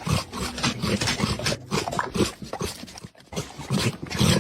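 A pet animal vocalizing loudly in a rapid, irregular run of short harsh calls.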